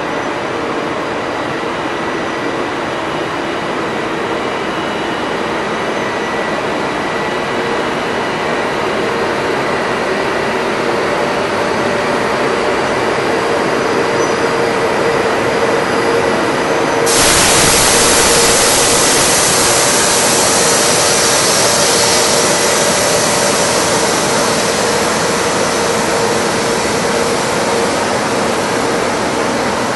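FS Tigre-class electric locomotive hauling a freight train slowly past. It gives a steady running noise with a faint steady hum and whine, growing slightly louder as it comes by. About 17 seconds in, a sudden loud hiss joins and keeps going.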